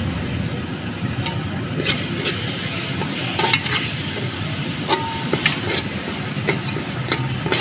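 A steel spoon stirring and scraping a coarse mix of ground flaxseed, poppy seeds and browned wheat flour in a steel pot as jaggery syrup is worked in. Irregular scrapes and clinks against the pot sound over a steady sizzling hiss.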